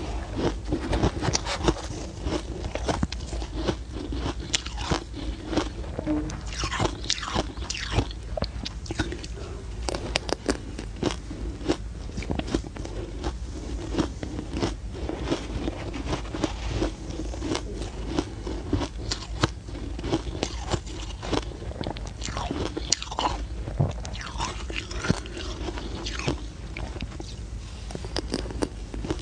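Soft, powdery ice being bitten and chewed close to a clip-on microphone: dense, irregular crunching and crackling throughout.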